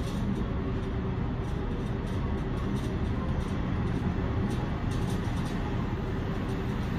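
Low, steady rumble of a Seoul Subway Line 3 train approaching through the tunnel.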